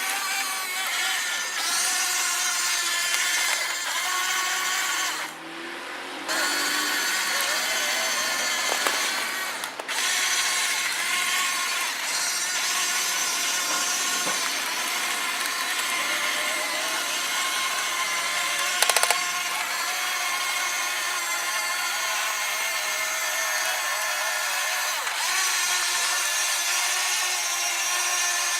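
Electric gear motors of a HuiNa 1550 metal RC excavator whining as its functions are worked, the pitch shifting with load, and briefly dropping away a couple of times.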